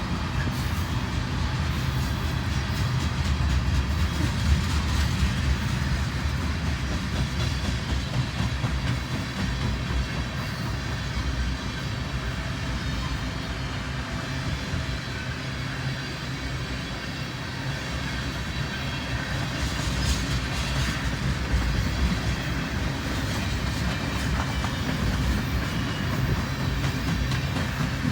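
Mixed freight train rolling past: a steady low rumble of steel wheels on rail, with clickety-clack over the joints.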